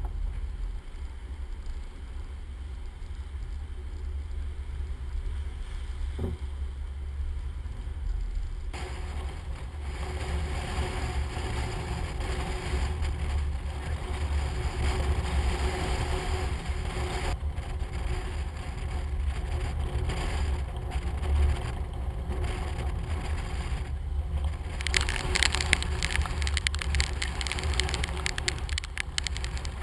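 Hurricane-force wind buffeting the microphone of a hood-mounted camera in a steady low rumble, over the rushing of storm-surge waves washing across the seafront. The noise grows louder about a third of the way in, and harsher near the end as gusts drive spray across the water.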